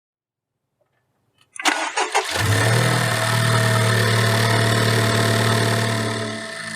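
Honda Civic Type R FK8's 2.0-litre turbocharged K20 four-cylinder being started: a few clicks, the starter cranks briefly, and the engine catches about two seconds in and runs at a steady fast idle, easing down a little near the end.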